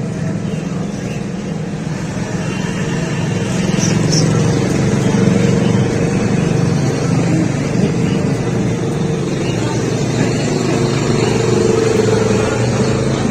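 Steady low engine-like rumble, as of a running motor vehicle, holding level with a slight rise about four seconds in.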